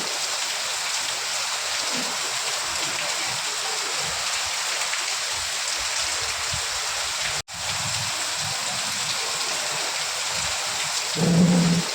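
Steady rain, an even hiss, which cuts out for an instant just past the middle. Near the end comes a short, louder low rumble lasting under a second.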